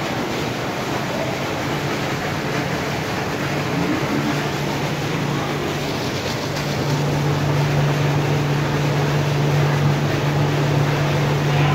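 Electric-motor centrifugal water pump running steadily, with the rush and splash of its outflow jet. The motor's steady hum comes up strongly a little past halfway.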